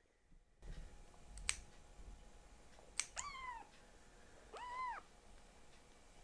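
A tabby kitten mewing twice in protest while its claws are clipped: a short falling meow about three seconds in, then a longer meow that rises and falls. A sharp snip of small pet nail clippers comes about a second and a half in, and another just before the first meow.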